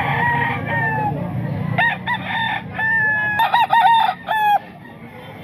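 Gamecock roosters crowing, several crows overlapping, loudest from about two seconds in and ending suddenly near the end, over a low steady background hum.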